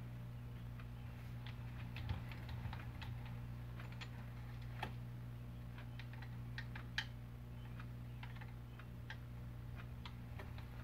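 Faint, irregular light clicks and ticks from a rotary table's crank and encoder assembly being turned by hand, over a steady low hum.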